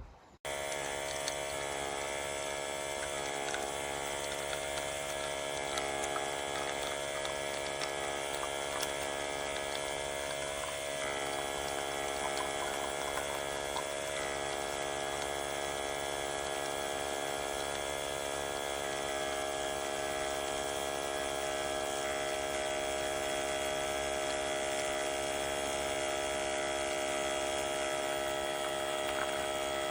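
Small electric pump of a portable espresso machine running steadily with a constant whine. It switches on abruptly about half a second in.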